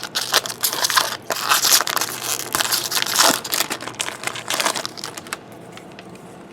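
Wrapper of a Bowman baseball card jumbo pack being torn open and crumpled: loud crinkling and crackling for about five seconds, stopping abruptly.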